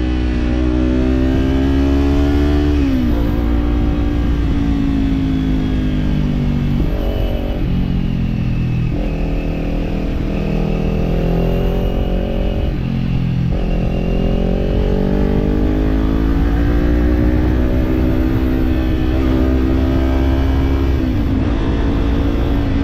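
Kawasaki parallel-twin motorcycle engine with an aftermarket slip-on exhaust, riding through the gears: the engine note climbs as it accelerates and drops at each of several gear changes. A low rumble of wind and road sits underneath.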